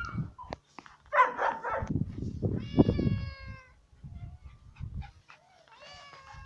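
A cat meowing several times: a rough cry about a second in, a longer drawn-out meow around the middle, and another meow near the end, with low thuds and rustling in between.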